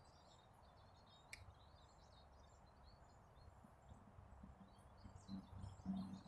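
Near silence, with faint bird chirps and a single faint click about a second in.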